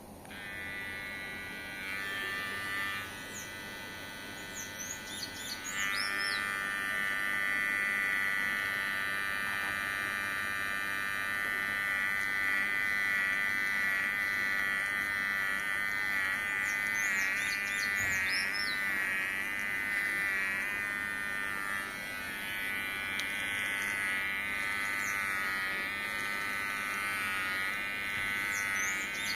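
Kemei electric hair clipper buzzing steadily as it is run over a beard, starting right at the beginning and wavering slightly in pitch as it cuts.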